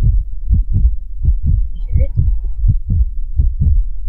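Recorded human heart sounds: a steady run of low lub-dub thumps, about four a second. The lub is the atrioventricular valves closing and the dub is the semilunar valves closing.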